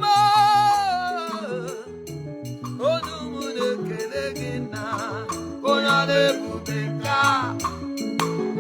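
Gospel worship music: a voice sings long notes with a wide vibrato over keyboard, bass and a steady drum beat.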